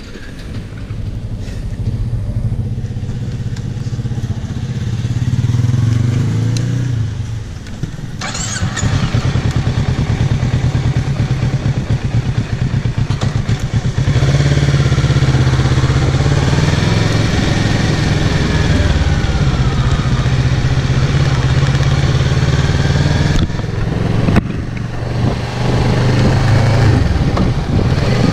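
2017 Kawasaki Z650's 649 cc parallel-twin engine through its stock exhaust, first running at a standstill, then growing louder and busier as the bike rides off and gathers speed. The engine sound drops away briefly about four-fifths of the way through, then picks up again.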